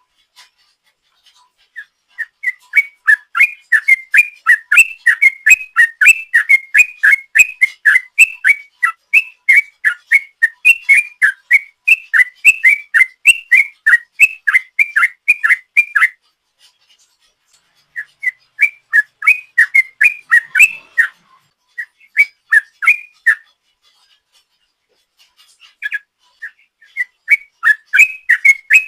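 Yellow-vented bulbul (trucuk) singing its 'ropel' song: fast runs of clear whistled notes, several a second. A long run of about fourteen seconds is followed by a pause and shorter runs, with the song picking up again near the end.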